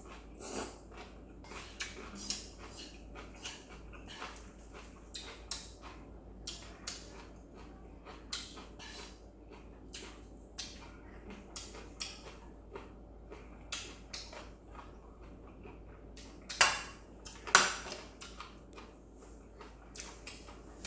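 Close-up eating sounds of a person eating noodles: a steady run of short slurps and chewing noises with light clinks of utensils on the dish. Two louder sounds come near the end.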